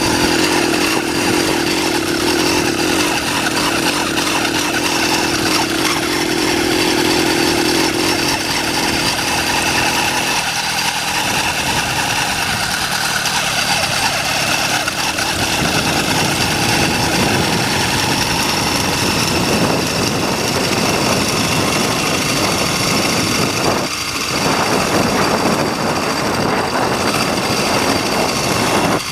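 80cc two-stroke motorized-bicycle engine running continuously. It holds a steady hum for the first eight seconds or so, then turns rougher and noisier, with a brief drop in level about 24 seconds in.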